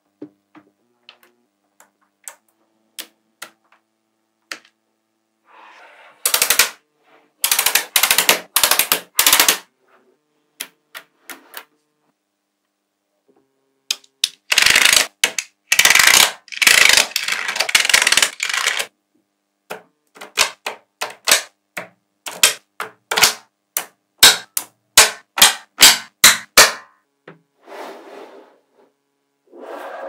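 Small magnetic balls clicking and clattering as strips of them snap onto a sheet of balls: sharp clicks, single and in quick runs, with short pauses between.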